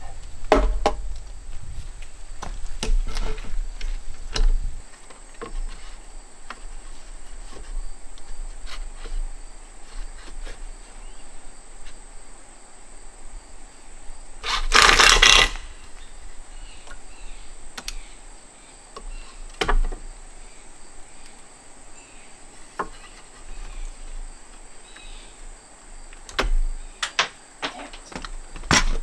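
Scattered knocks and clicks of lumber and tools being handled during shed roof framing, over a steady high insect drone. About halfway there is one loud, harsh noise lasting about a second.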